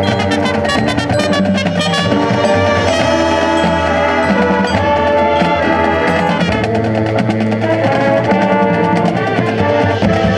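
High school marching band playing a Latin-style show piece: brass chords with a drumline keeping the beat.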